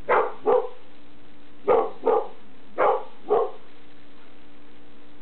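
Mixed-breed dog barking in pairs: six short barks, two at a time, stopping about three and a half seconds in.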